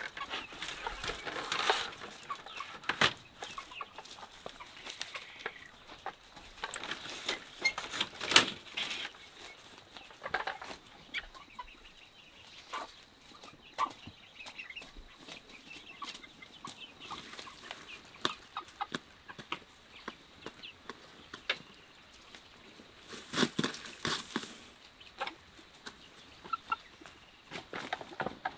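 A flock of young chickens clucking and shuffling in a coop, with scattered short calls and scratches and a brief loud rustling flurry near the end.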